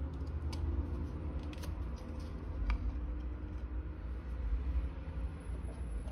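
A few light clicks and taps as a knife in a plastic sheath is picked up off a wooden table and handled, over a steady low rumble.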